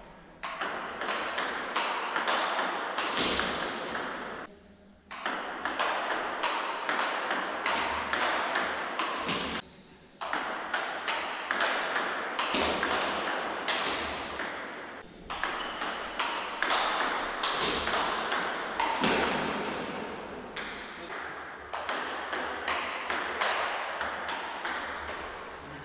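Table tennis rally: the ball clicks in quick succession, a few times a second, off the rubber bats and the Butterfly Octet table. The rally pauses briefly about five seconds in and again about ten seconds in.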